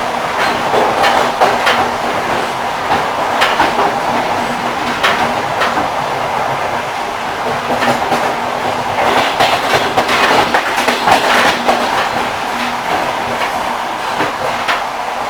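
Railway carriage wheels clacking over rail joints, sharp knocks at uneven spacing over the steady rumbling noise of the moving train.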